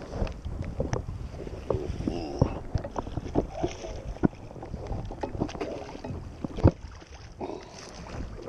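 Choppy water lapping and splashing close to the microphone, with wind buffeting the mic and scattered short, sharp knocks.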